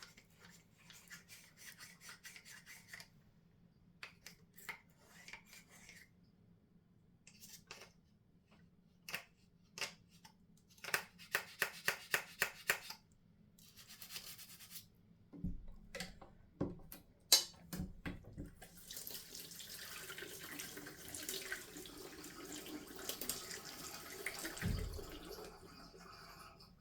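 Old toothbrush scrubbing the plastic detergent drawer of a washing machine in runs of quick strokes, with a few knocks around the middle. In the second half, running water pours over it for several seconds.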